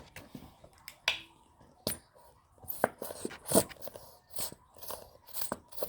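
A run of irregular light clicks and taps, about a dozen, the loudest about three and a half seconds in.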